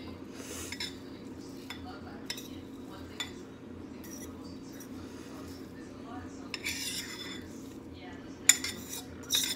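A spoon scraping and clinking against a small skillet as buttered cracker crumbs are scooped out and pushed onto a casserole, with irregular taps and one sharp clink near the end.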